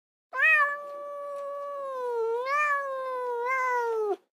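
A domestic cat's single long yowl, drawn out for about four seconds. The pitch stays fairly level, dips and rises once in the middle and falls at the end before the call cuts off.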